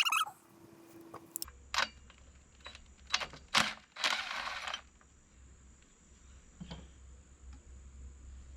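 Small metal parts and hand tools being handled during repair work on a chainsaw's kill switch: a few sharp clicks and taps, and a brief scraping rustle about four seconds in.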